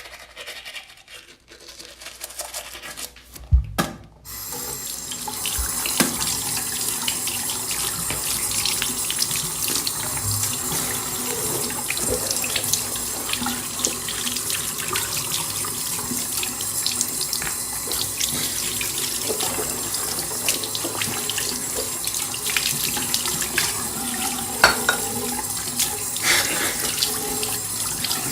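A couple of sharp clicks about four seconds in, then a tap runs steadily into a sink, with small splashes throughout.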